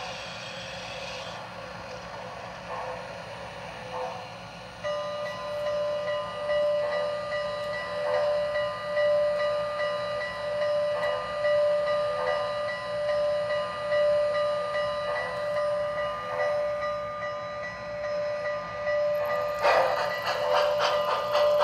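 MTH Rail King model Northern Pacific steam locomotive running with its sound effects: steam puffs repeating about once a second, with a steady whine that sets in about five seconds in. Near the end the sound turns louder with a fast, even beat.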